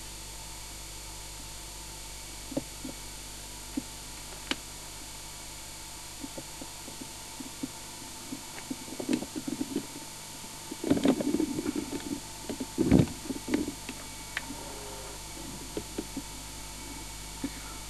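Steady hiss from a noisy VHS tape playback, with a faint steady tone. It is broken by a few sharp clicks and, about two-thirds of the way through, a short run of louder muffled knocks.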